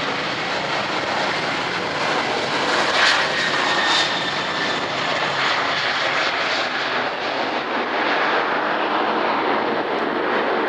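Fixed-wing aircraft's engines running loud and steady as it passes, with a faint whine that drops slightly in pitch about three seconds in.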